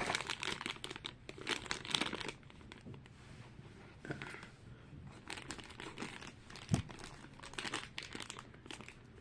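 Packaging of a collectible blind box being crinkled and torn open by hand, in busy spells at the start and again in the second half, with a single light knock about seven seconds in.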